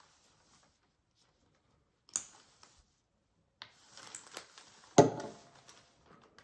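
Paint bottle and plastic palette handled on a hard tabletop while white acrylic paint is dispensed: a sharp click about two seconds in, a few small taps and rustles around four seconds, then a louder knock with a brief ring about five seconds in.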